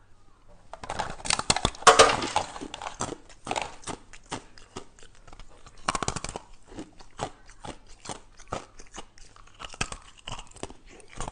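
Ice being bitten and chewed up close: a rapid, irregular run of sharp crunches and cracks, loudest about two seconds in.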